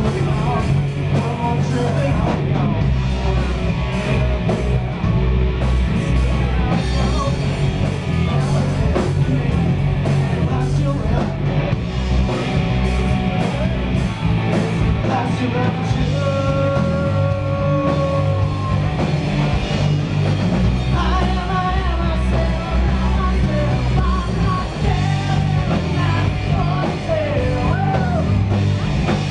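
Live rock band playing loud, with sung vocals over electric guitars, bass and drums. A long sung note is held about halfway through.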